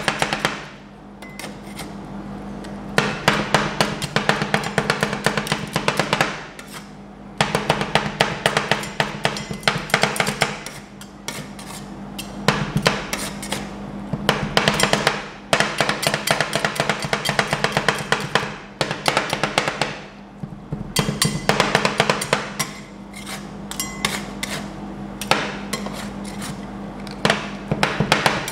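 Two metal spatulas rapidly chopping corn ice cream on a frozen steel cold plate: fast runs of metal clacking and tapping lasting a few seconds each, broken by short pauses, over a steady hum.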